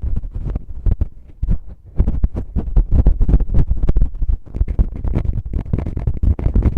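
Fingers rubbing, scratching and tapping in a binaural microphone's ear, heard as close, muffled thumps and rustles several times a second, easing off a little about a second in before picking up again.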